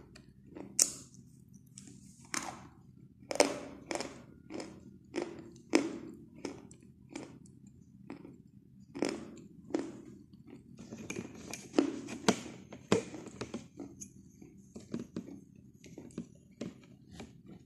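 Orange chalk being bitten and chewed: sharp, irregular crunches about every half-second to a second, with a denser run of crunching about two-thirds of the way through.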